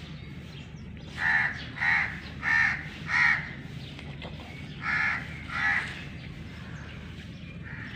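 Crow cawing: a run of four harsh caws about half a second apart, then two more a couple of seconds later.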